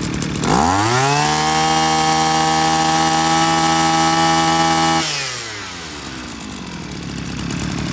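Echo 315 brush cutter's two-stroke engine revved from idle to full speed by pulling the throttle cable by hand. It holds a steady high whine for about four seconds, then drops back to a rattly idle about five seconds in.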